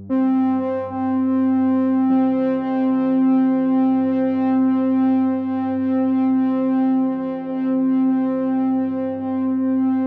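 Background synthesizer music: sustained, droning electronic chords that come in loudly at the start, with a chord change about two seconds in.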